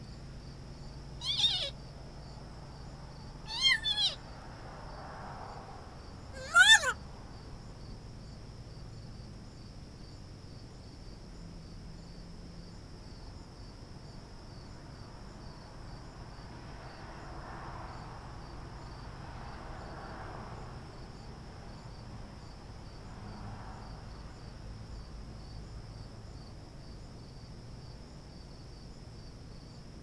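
African grey parrot giving three short calls that fall in pitch, the second one doubled, all within the first seven seconds. A steady high insect trill runs underneath throughout.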